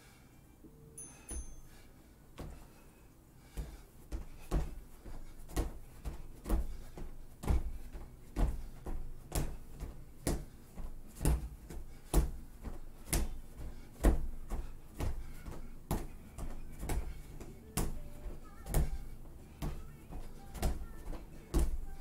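Footfalls of a person doing knee-to-elbow steps with a hop on gym mats over a wooden deck. They start about two seconds in and keep a steady rhythm: a heavier landing about once a second with lighter steps between. A brief high beep about a second in, from an interval timer.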